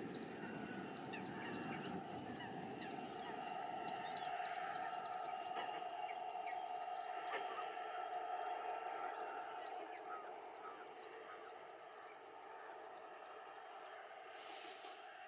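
Many short bird chirps over a steady hum, getting quieter over the last few seconds.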